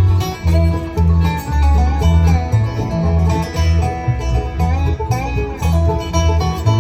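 Bluegrass band playing an instrumental passage of a song: picked banjo and guitar over a steady walking bass line.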